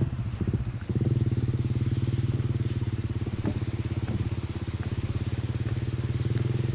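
A small engine running steadily with a fast, even pulse, growing louder about a second in.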